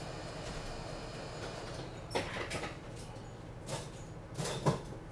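Small FPV racing quadcopter being handled and closed up: a few short clicks and scrapes of frame parts being fitted together, coming in the second half, over a low steady hum.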